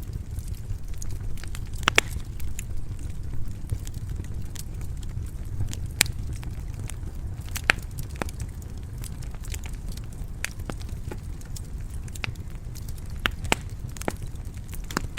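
Wood fire crackling in a fireplace: a steady low rumble of the flames with irregular sharp pops and snaps, a few louder ones about 2, 6 and 8 seconds in.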